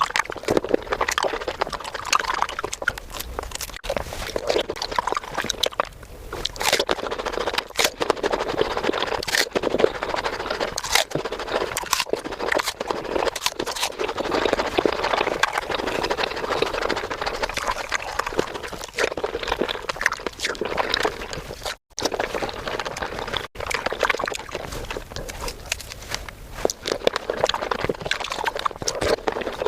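Close-miked fruit eating sped up five times: a fast, dense stream of crunching, biting and chewing clicks, with two brief dropouts where the clips are joined about two-thirds of the way through.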